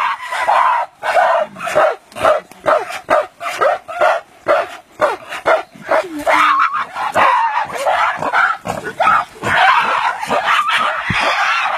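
Several gorillas calling during a fight: a rapid run of short, loud calls, several a second, running together more near the end.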